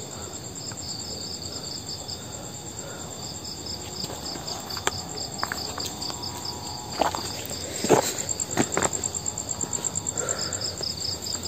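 Crickets chirping in a steady, fast-pulsed high trill, with a few sharp knocks and rustles from about seven to nine seconds in.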